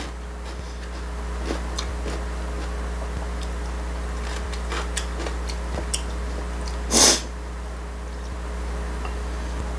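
A person eating: she chews crunchy kohlrabi kkakdugi, with faint scattered clicks of chopsticks and chewing, over a steady low electrical hum. About seven seconds in comes one loud, short, breathy sniff-like noise.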